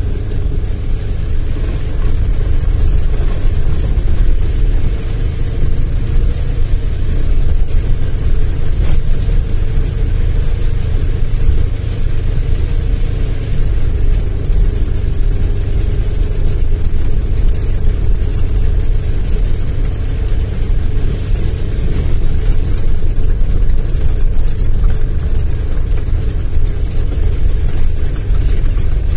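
Car engine and tyre noise heard from inside the cabin while driving slowly over a muddy dirt road: a steady low rumble with a faint engine hum.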